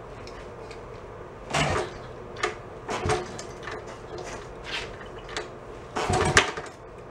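Honda CT70's small four-stroke single being kicked over, without choke, and not catching: a string of separate knocks and clacks from the kick-starter and engine turning over, with a longer, louder burst about six seconds in.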